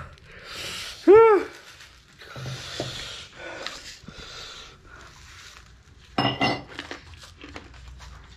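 A man hissing and panting air through his open mouth, the burn of extra-spicy Current noodles. About a second in he lets out a short, loud wailing cry that rises and falls in pitch, and there is another short cry around six seconds in.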